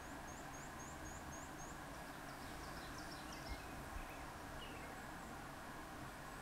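Faint birdsong: a quick run of about seven high chirps, then scattered lower chirps, over a quiet steady hum. Two soft low thumps about halfway through.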